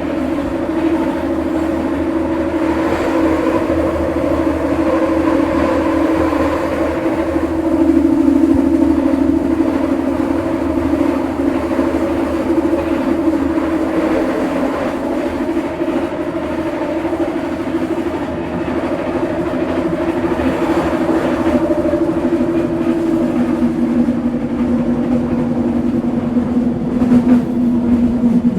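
Scarborough RT light-metro train (UTDC ICTS Mark I car, driven by linear induction motors) running between stations, heard from inside the car: a steady rumble with a continuous motor hum whose pitch drops from about 24 s in.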